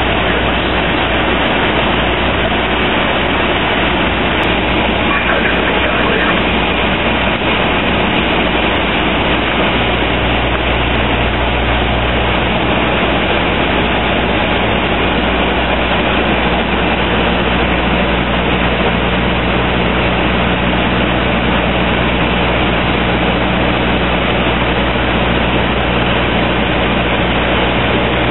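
Steady cockpit noise of a Dash 8-300 turboprop airliner on approach: the hum of its twin turboprop engines and propellers under an even rush of air, with a low drone that shifts slightly about ten seconds in.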